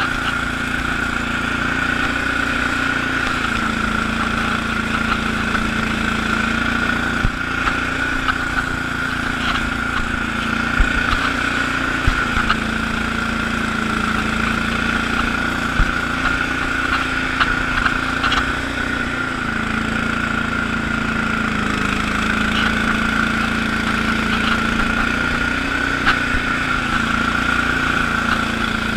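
Allis-Chalmers HB-112 garden tractor engine running steadily while the tractor drives a 48-inch Sweepster rotary broom through snow, with a steady high whine over it and scattered clicks and knocks. The engine note sags briefly and recovers several times as it takes load.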